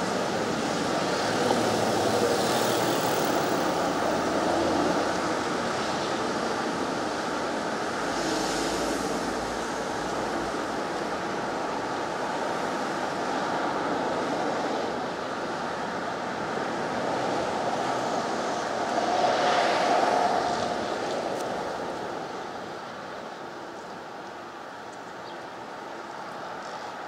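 Street traffic: a steady wash of cars on the road, with single cars passing louder about two, eight and nineteen seconds in.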